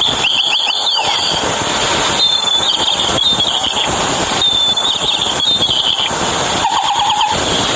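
Chirping toy bird giving repeated high trilled chirps, the same phrase coming back every couple of seconds, with lower trills near the end, over a steady hiss.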